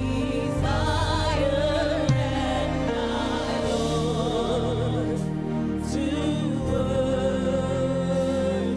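Slow gospel worship music: sustained keyboard chords under long, wavering sung notes with vibrato and no clear words, which pause briefly about two-thirds of the way through.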